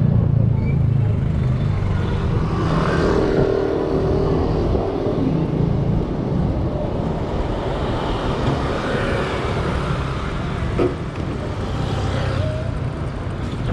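City road traffic: motor vehicle engines running and passing close by in a steady rumble, with one short sharp click about three quarters of the way through.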